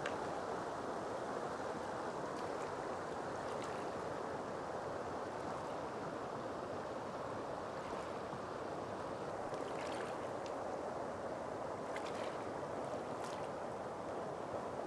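Steady rush of shallow water, with a few short splashes and sloshes near the end as legs wade through it and hands reach into it.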